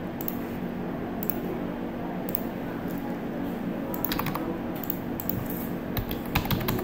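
Computer keyboard keystrokes and mouse clicks while logging in: scattered single clicks about a second apart, then quick runs of keystrokes about four seconds in and near the end, over a steady low hum.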